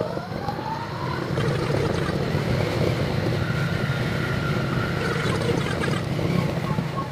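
JR West 201 series electric train running, heard from the cab and sped up ten times: a dense, steady running noise, with the motor whine still climbing in pitch during the first second as the train accelerates.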